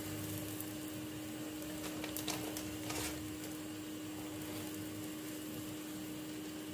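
Steady low hiss with a constant hum. About two to three seconds in come a few soft scrapes of a table knife spreading butter on a slice of bread.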